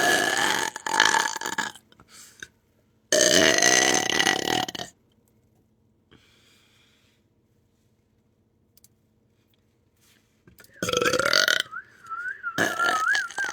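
Several long, loud human belches: one trailing off about two seconds in, another about three seconds in, then a quiet stretch and more belches near the end, one of them wavering up and down in pitch.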